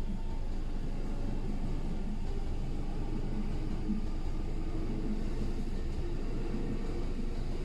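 Electric commuter train passing over a railway level crossing: a steady low rumble.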